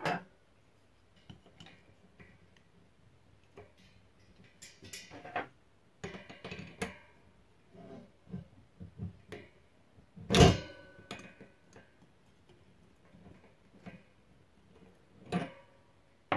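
Scattered metallic clicks and clanks of wrenches working the axle nuts and cone of a Shimano 3CC three-speed hub being taken apart, the loudest a sharp clank that rings on briefly about ten seconds in.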